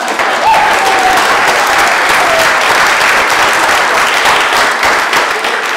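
A roomful of guests applauding: a steady round of clapping from many hands. A single voice is briefly heard over it in the first second or so.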